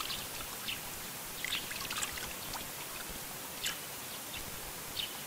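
Water trickling steadily from a village fountain into its concrete trough, with a few light splashes as hands dip into the water.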